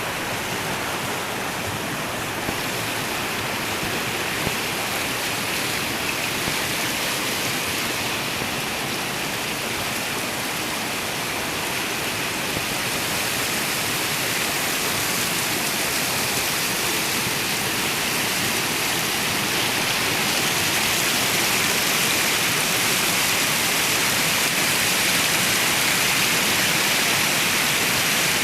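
Flowing water rushing steadily, like a stream or small waterfall, growing slightly louder partway through.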